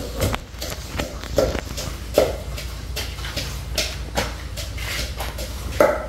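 Scattered light knocks and clicks, roughly one a second at irregular spacing, over a steady low hum.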